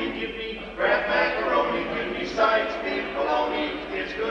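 Male barbershop quartet singing a cappella in close harmony, held chords with a short break about half a second in before the next phrase.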